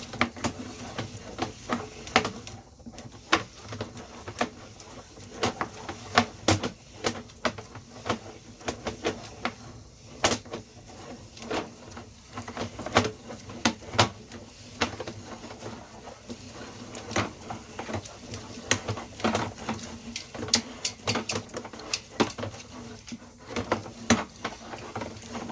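Sewer inspection camera on its push rod being fed down a drain line: irregular clicks and knocks, several a second, over a steady low hum.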